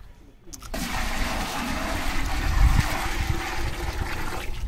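A bucketful of water poured and splashed onto freshly cement-plastered tank walls and floor, rushing and splattering. It starts abruptly about a second in and runs until just before the end.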